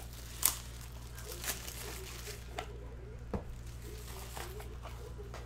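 Trading card packs and cards being handled: several short crinkles and taps, the loudest about half a second in.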